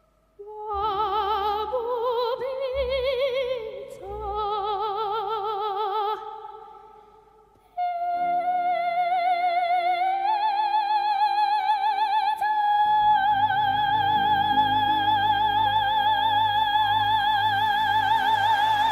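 Background music: a slow, operatic melody in long held notes with wide vibrato over a soft low accompaniment, in three phrases, the last one long and sustained.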